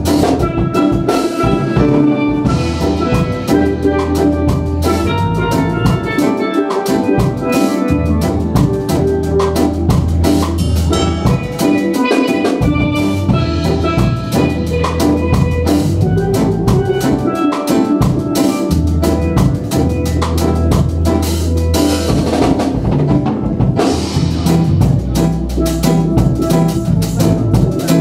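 Live steel band music: a pair of steel pans struck rapidly with sticks, carrying the melody over a drum kit and keyboard, with steady bass notes underneath.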